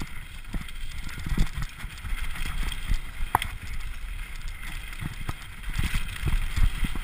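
Mountain bike riding fast down a rough dirt trail: a steady low rumble with irregular knocks and rattles as it goes over bumps, and a sharp click about three and a half seconds in.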